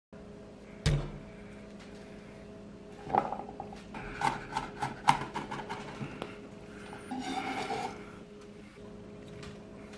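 Kitchen prep handling of a glass mixing bowl on a wooden board: a thump about a second in, then a run of light clinks and taps, and a short scraping rattle about seven seconds in, over a faint steady hum.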